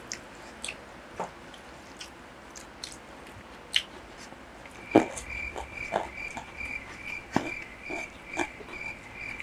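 Close-miked eating: chewing and biting food, with scattered small clicks and smacks. From about five seconds in, a thin, high chirping pulses about three times a second alongside it.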